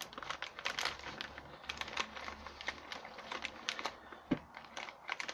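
Plastic packaging bags being handled, crinkling and rustling in a quick, irregular run of small crackles and clicks.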